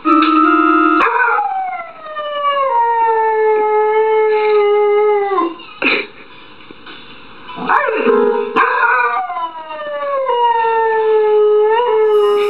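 A dog pressing the keys of an electronic keyboard, sounding a short held chord, then howling along in a long howl that slides downward in pitch. This happens twice, with a knock of the keyboard in between.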